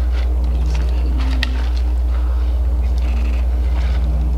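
Camera shutters firing in rapid bursts, like a machine gun, with a dense cluster about three seconds in, over a steady low rumble.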